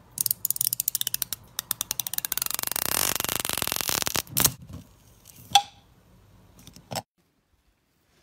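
A zipper being pulled open: a run of sharp clicks that speed up into a dense rasp over about four seconds, followed by a few separate clicks and taps.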